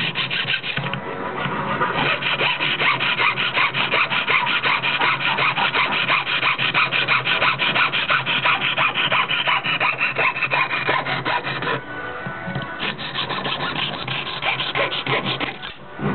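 A fretsaw's fine blade cutting through a small blank along a paper template, in rapid, steady back-and-forth strokes. The sawing stops briefly about twelve seconds in, then starts again.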